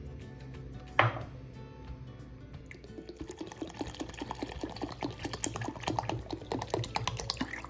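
Water poured from a plastic bottle into a steel mixer-grinder jar of curd batter, glugging and splashing in quick, irregular spurts from about three seconds in. A single sharp knock about a second in.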